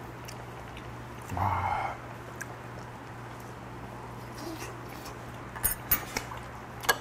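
A person eating hot fish stew: a short mouth sound about a second and a half in, then a few sharp clicks of chewing and eating near the end, over a steady low hum.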